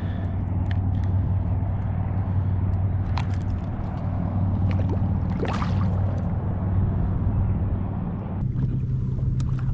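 Steady low hum of a boat motor, stepping up slightly in pitch about eight and a half seconds in, with a few faint clicks over it.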